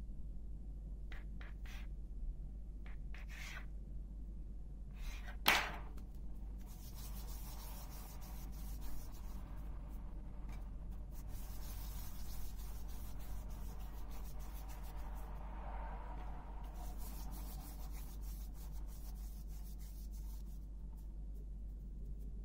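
Hands rolling and handling soft dough on a floured table: soft rubbing and brushing, with one sharp knock about five and a half seconds in, over a steady low hum.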